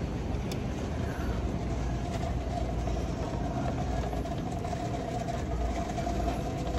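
Steady low rumbling noise with a constant mid-pitched hum running through it.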